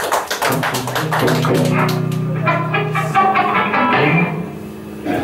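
Electric guitar and bass guitar notes ringing through the amps, with the last of the crowd's clapping in the first second.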